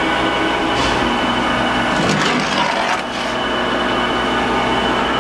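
Blanchard 22K-42 rotary surface grinder's 50 hp spindle motor running steadily at full speed, about 700 RPM, just after spin-up, its grinding wheel turning free with no work on the chuck: a steady whine made of many tones. A few short knocks sound about one, two and three seconds in.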